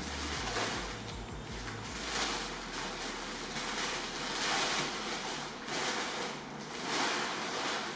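Brown kraft packing paper rustling and crinkling as it is pulled off a motorcycle's fuel tank and bunched up by hand, in uneven swells.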